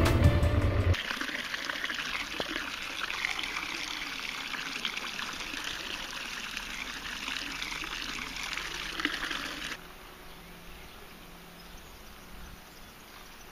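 Water trickling and splashing into a stone fountain basin, a steady hiss; about ten seconds in it gives way to a fainter outdoor background.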